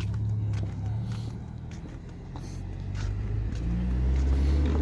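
A motor vehicle's engine running steadily, growing louder from about three seconds in.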